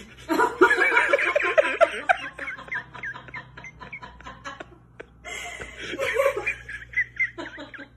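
A person laughing: a bout of quick, repeated giggles, quieter short laughs, then a second bout of giggling about five seconds in.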